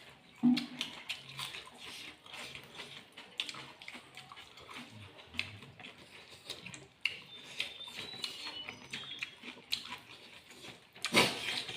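Mukbang eating sounds: people chewing and smacking food close to the microphone, a run of many small irregular clicks, with a louder burst near the end.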